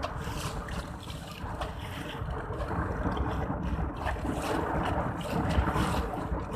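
Boat under way at sea: a steady engine drone under water rushing past the hull, with wind buffeting the microphone in uneven gusts.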